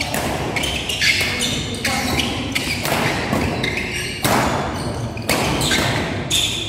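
Fast badminton doubles rally: racket strikes on the shuttlecock, about one every half second to a second, with shoes squeaking and scuffing on the court and a reverberant hall.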